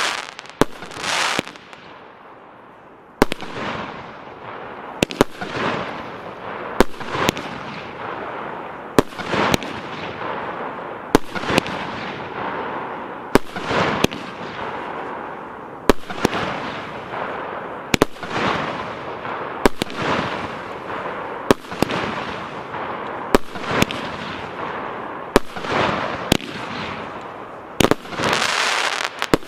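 A 24-shot, 30 mm consumer firework battery (cake) firing its shots in sequence, about one a second, each a sharp bang followed by a fading hiss. There is a short lull about two seconds in, and the shots come thicker and louder near the end.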